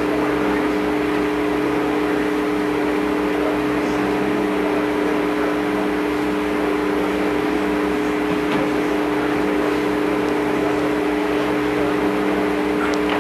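A steady, unchanging hum with two strong tones and weaker lower ones, over a constant hiss.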